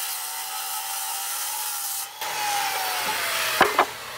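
Corded circular saw cutting through a pine 2x4, its motor whining steadily; after a brief dip about two seconds in, the cut resumes and the motor's pitch falls as it spins down. Two sharp knocks come just before the end.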